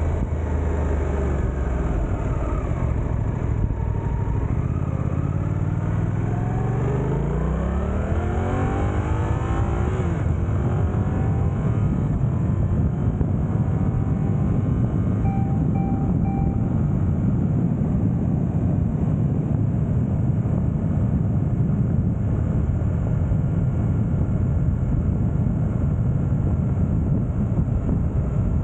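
Suzuki GSX-8S parallel-twin engine accelerating hard, its note sweeping up in pitch for several seconds as the bike goes from about 30 to 90 km/h. It then settles into a steady cruise in fourth gear, where the even rush of wind on the microphone and of the road covers most of the engine.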